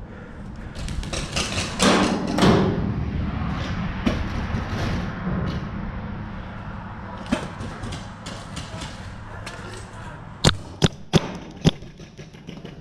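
Paintball fire: a flurry of rapid sharp pops from paintball markers in the first few seconds, then four sharp cracks in quick succession near the end, over a steady noisy background.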